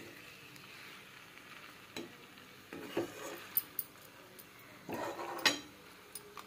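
Flat metal spatula scraping and stirring a thick chicken and potato curry in a steel kadai, a few separate strokes with the loudest scrape about five and a half seconds in, over a faint sizzle from the pan.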